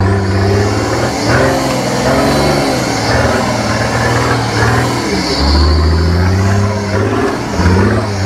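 Off-road vehicle's engine heard from inside the cab while driving over a rough dirt track, its revs dropping and rising again a couple of times.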